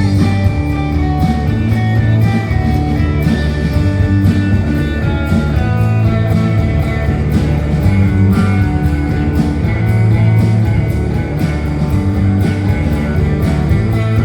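Live rock band playing an instrumental passage without vocals: electric guitar lines over bass and drums with a steady beat.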